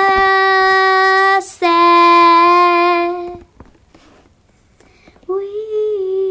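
A girl singing unaccompanied, holding long steady notes: two sustained notes at the start, a pause of about two seconds, then another held note near the end.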